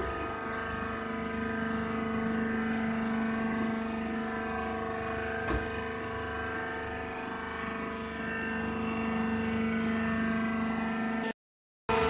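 Hydraulic press baler's power unit, an electric motor driving the hydraulic pump, running with a steady hum, with a single click about five and a half seconds in. The sound cuts out abruptly near the end.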